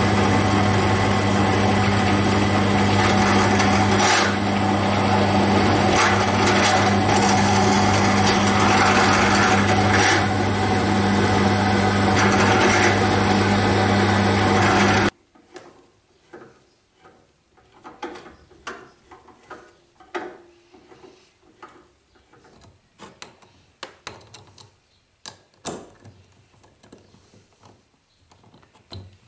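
Bench drill press running and drilling into a small metal part, a steady motor hum under the cutting noise. It cuts off suddenly about 15 seconds in, and light clicks and taps of metal parts being handled follow.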